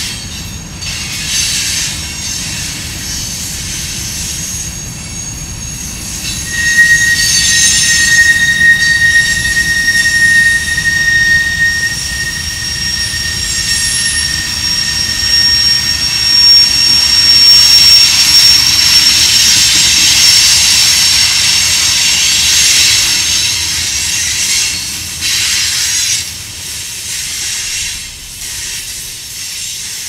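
Freight train cars, mostly covered hoppers, rolling past with a steady rumble and clatter of wheels on rail. A high, steady wheel squeal sets in about six seconds in, and a second, higher squeal joins it and holds until a little past the twenty-second mark. The sound fades as the last cars go by near the end.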